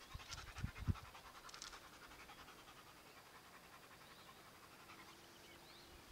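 German Shepherd dog panting quickly and evenly, faint, with a couple of low thumps in the first second.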